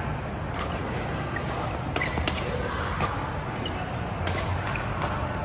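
Badminton rally in a large echoing hall: a string of sharp racket strikes on the shuttlecock, with a few short shoe squeaks on the court mat over a steady low hum.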